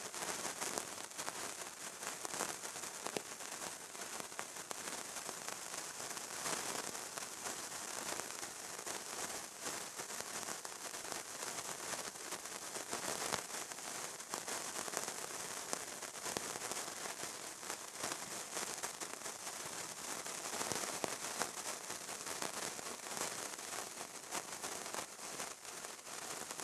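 Fire burning with a steady, dense crackle: many small pops over a continuous hiss.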